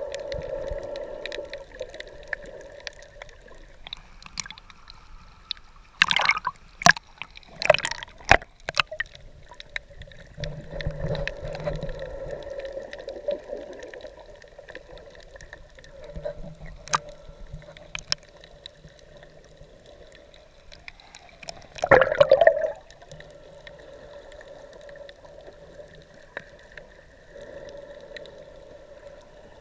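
Muffled underwater sound of shallow sea water heard through a submerged action camera, with a cluster of sharp knocks about six to nine seconds in and one louder burst a little past the twenty-second mark.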